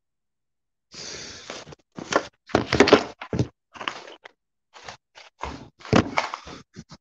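Handling noise from a phone recording close to its own microphone: a short scrape, then a run of uneven knocks, thuds and clatters as a hand moves the phone and things around it.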